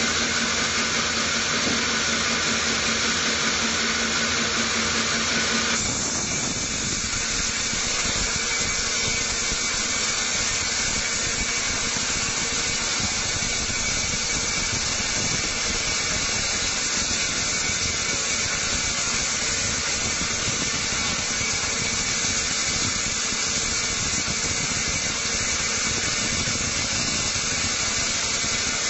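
Log band sawmill ripping through a teak log: the steady, hissing noise of the band blade cutting wood over the machine's running drive. A low hum drops out about six seconds in, and the cutting noise carries on unchanged.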